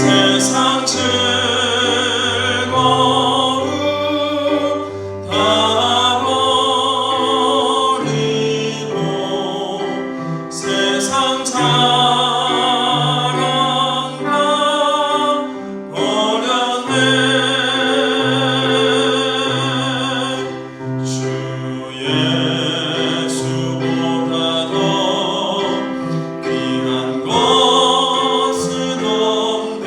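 Hymn singing with keyboard accompaniment: voices with a strong vibrato carry the melody in phrases a few seconds long, over held bass notes that change every second or two.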